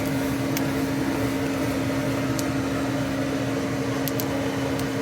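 Electric forge blower fan running with a steady hum, blowing air into the fire, with a few sharp crackles from the kindling catching alight.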